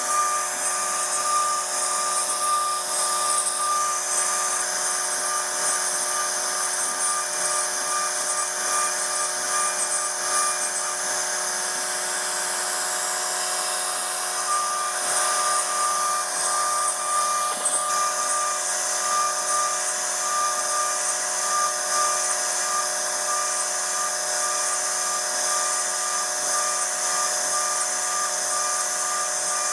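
CNC router spindle running as its bit carves a 2.5D design, a steady high whine with cutting hiss; one of its tones drops out for a few seconds midway.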